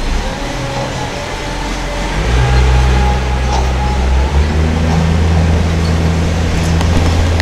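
A small boat's engine running with a low, steady drone. The drone swells louder about two seconds in and then holds steady.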